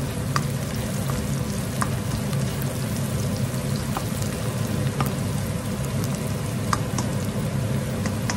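Chopped onion and garlic sizzling in sunflower oil in a wok, with scattered small pops and a spatula stirring them. A steady low hum runs beneath, from the range hood's fan.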